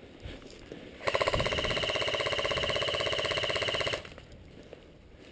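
Airsoft electric gun firing a full-auto burst of about three seconds: a loud, steady, rapid buzz that starts and stops sharply.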